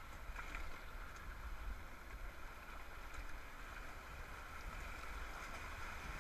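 Steady rush of water flowing down a narrow concrete chute around a sit-on-top kayak, over a low steady rumble, with a few faint ticks.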